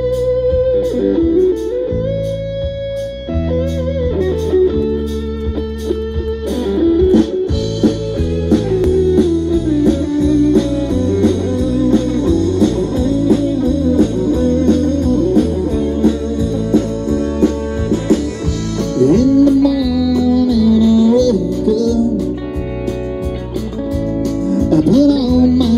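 Live country band playing an instrumental intro: an electric lead guitar plays phrases full of bent, sliding notes over bass guitar and steady drums.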